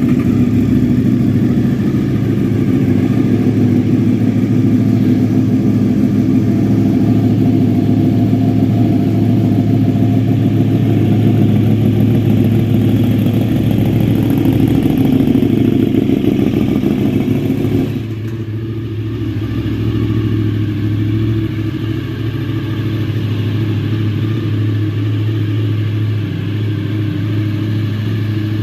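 Sport motorcycle engine idling steadily through an aftermarket exhaust with the baffle removed. About eighteen seconds in the sound changes abruptly, becoming slightly quieter and duller.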